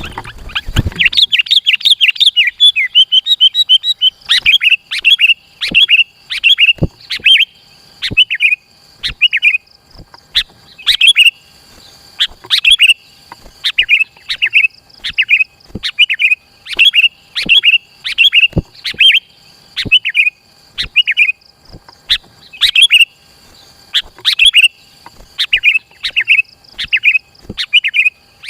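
Sooty-headed bulbul (kutilang) singing in vigorous, tightly packed bursts of short bubbly phrases, about one a second, with a brief low thump right at the start.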